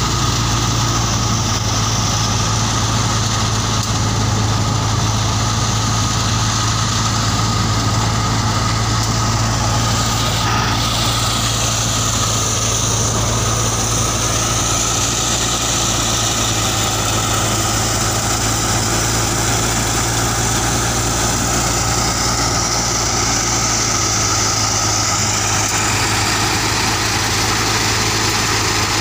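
Tractor-powered wheat thresher running steadily at work, a constant loud drone of the tractor engine and the spinning threshing machine.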